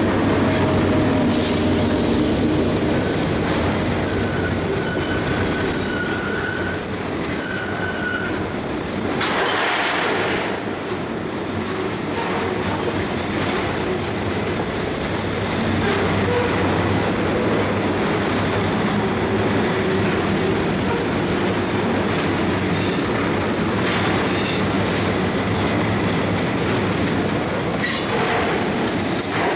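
A Norfolk Southern welded-rail freight train rolls past at close range. A trailing diesel locomotive goes by at the start, then flatcars loaded with strings of continuous welded rail. Steady wheel-on-rail rolling noise runs throughout, with a continuous high wheel squeal and a couple of brief clanks.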